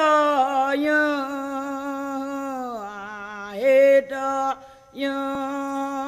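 Indigenous Brazilian chant, a sung prayer, performed unaccompanied: a voice holds long steady notes, drops lower a little before the middle and climbs back, then pauses briefly for breath about four and a half seconds in before holding the note again.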